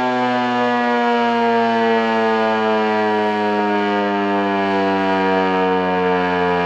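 American Signal T-128 electromechanical outdoor warning siren sounding a tornado-drill alert: one loud, steady wail whose pitch slides slowly and evenly lower as the siren winds down.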